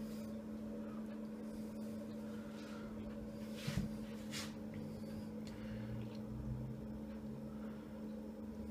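Platter holding an upturned metal loaf pan set down on a cloth-covered table: a dull knock a little under four seconds in, then a fainter tap, over a steady low hum.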